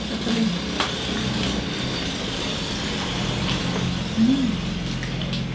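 Close-up chewing and crunching of crispy roast pig skin, with a few sharp crackles, over a steady low hum.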